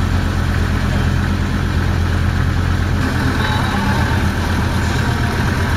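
Motorboat engine running steadily under way, with a low drone and a hiss of water and wind. About three seconds in the engine note changes and the hiss grows louder.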